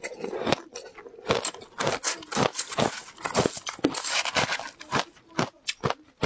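Shaved ice with passion fruit being crunched and chewed, a rapid run of sharp, irregular crunches. A metal spoon scoops more ice from the bowl partway through.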